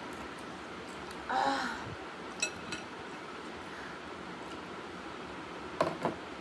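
Table eating sounds over a steady room hiss: a short vocal sound a little over a second in, two light clicks of a metal spoon against a bowl, and two knocks close together near the end.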